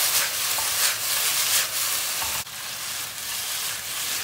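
Diced chicken breast and chopped onion sizzling in hot oil in a frying pan, sautéed over high heat as the chicken begins to caramelise. The sizzle drops suddenly to a quieter level about two and a half seconds in.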